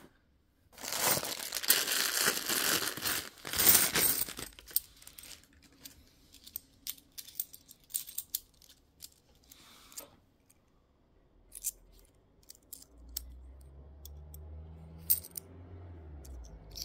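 Plastic coin bag crinkling and tearing for about four seconds, then scattered light clicks of 50p coins being handled and set down.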